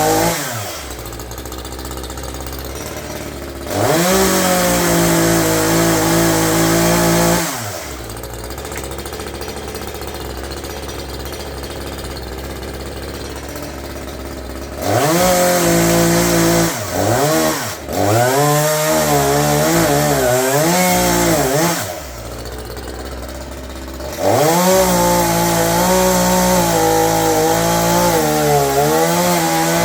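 Gas chainsaw revved to full throttle in four bursts of several seconds each, dropping back to a steady idle between them. During the later bursts the pitch wavers up and down, as it does when the chain is loaded cutting through a branch.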